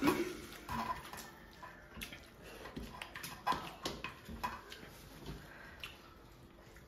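Quiet eating sounds: fingers scraping and picking at curry rice on steel platters, with chewing and mouth noises, heard as a scatter of short clicks and scrapes.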